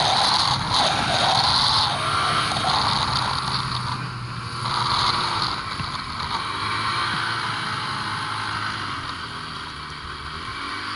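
Ski-Doo snowmobile engine running under way through deep snow, loudest for the first couple of seconds, then easing off toward the end.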